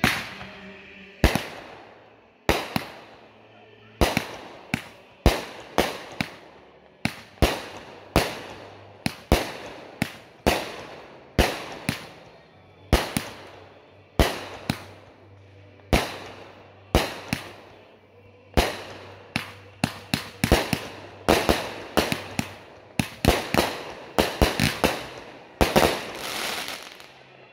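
Aerial fireworks going off in a long string of sharp bangs, about one a second, each followed by a short fading crackle. The bangs come faster and closer together near the end, building to a rapid finale.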